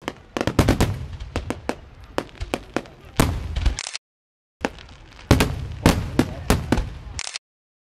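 Fireworks going off in a rapid, irregular series of sharp bangs and pops, some with ringing tails. The sound cuts out abruptly to dead silence twice.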